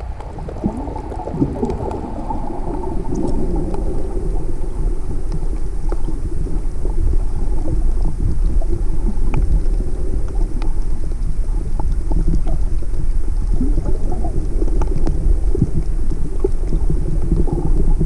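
Underwater sound picked up by a snorkeller's camera: a muffled low rumble of moving water with scattered small clicks, growing louder over the first several seconds.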